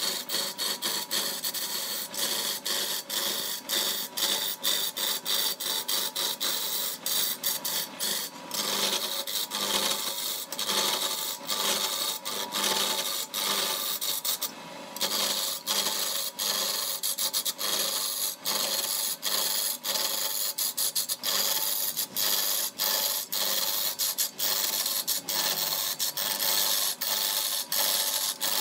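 A turning tool cutting a log spinning on a wood lathe: a continuous rasping hiss of wood being shaved away, full of rapid ticks, with a short break about fifteen seconds in.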